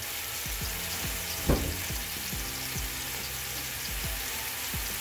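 Pork belly (samgyupsal) sizzling steadily as it fries, with one short knock about a second and a half in.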